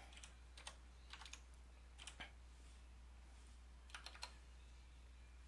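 Faint keystrokes on a computer keyboard as Emacs commands are typed: single keys and quick pairs, in about five groups, with a pause of a second or so before the last pair.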